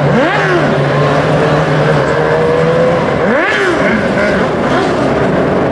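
A pack of winged 600cc micro sprint cars running on a dirt oval, their motorcycle engines at steady revs with two brief rises and falls in pitch, about a quarter second in and about three and a half seconds in.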